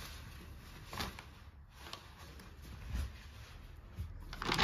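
Faint rustling and handling of clothing and a plastic shopping bag: a few brief rustles, then a louder one near the end.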